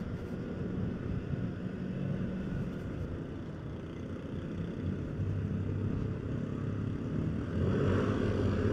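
Onboard sound of a motorcycle riding along a road: the engine running steadily under wind and road noise, growing a little louder near the end.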